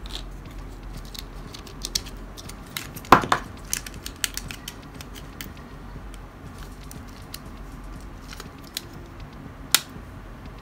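Hard plastic clicks and snaps as a Tamiya Mini 4WD AR chassis is taken apart by hand: the battery cover comes off and the batteries are pulled out. There is a louder clatter about three seconds in and a single sharp click near the end.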